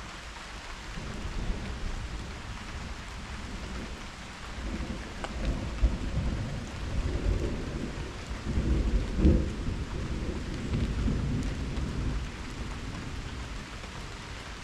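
Steady rain with rolling thunder: a low rumble builds about a second in, swells in several waves with its loudest crack about nine seconds in, then fades out near the end.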